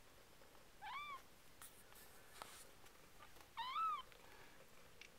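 Two-week-old RagaMuffin kittens mewing: two short mews about three seconds apart, each rising and then falling in pitch.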